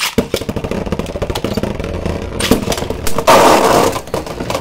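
Two Beyblade Burst spinning tops, one of them 3D-printed, launched into a plastic stadium and clattering against each other and the stadium wall in rapid hits, with a louder scraping clash a little after three seconds in.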